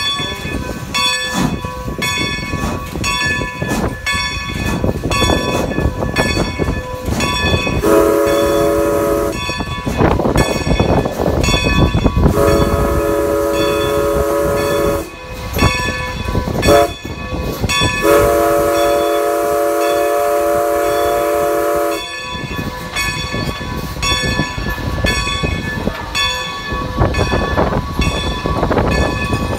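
Steam locomotive #90's whistle sounds the grade-crossing signal, a chord of several notes: two long blasts, a short toot and a final long blast. The engine's bell rings steadily about twice a second throughout, over the running noise of the locomotive on the rails.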